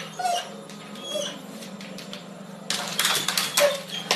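A pet's short, high whines and squeaks, several in a row, sliding up and down in pitch. About three seconds in, a burst of rapid clicking and clattering joins them.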